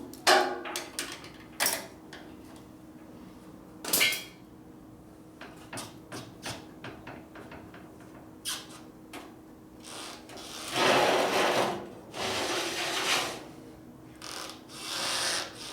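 Workshop handling sounds: tools and metal parts clinking and knocking at irregular intervals, with a few longer scraping or rushing noises in the second half, over a faint steady hum.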